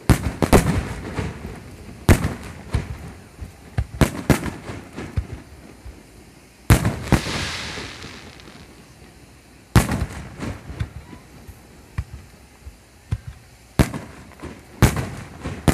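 Aerial fireworks shells bursting overhead: a string of sharp booms, one to four seconds apart. Some are followed by crackling, and one about seven seconds in by a long fizzing hiss.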